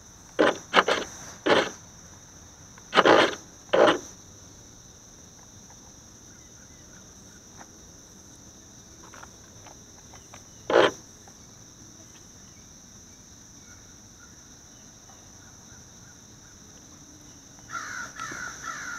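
A crow cawing: a run of loud, short, harsh caws in the first four seconds and one more about eleven seconds in. A steady high-pitched insect drone runs underneath, and a brief chattering comes near the end.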